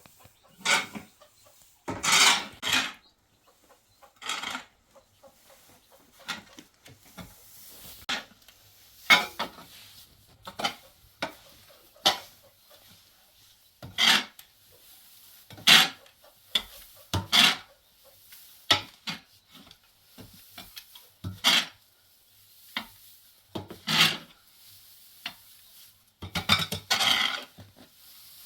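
A hand tool scraping and stirring through cement mortar in irregular strokes, about one every second or two, with a few sharper knocks among them.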